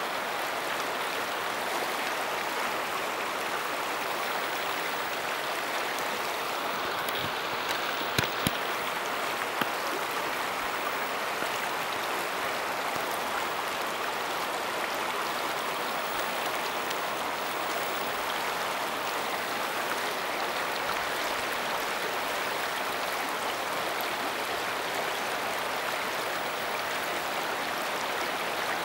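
Shallow river running steadily over rocks, a constant rush of flowing water. A few brief sharp clicks stand out about eight and nine and a half seconds in.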